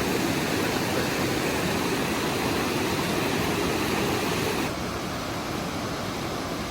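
Steady rush of river water. About two-thirds of the way through it drops a little in level and changes tone, as at a cut to another shot.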